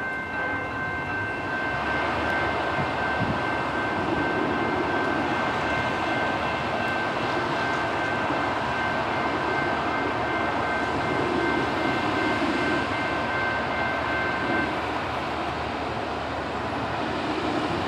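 Train running on the line: a steady rumble, with a thin, steady high-pitched whine over it that cuts off about fifteen seconds in.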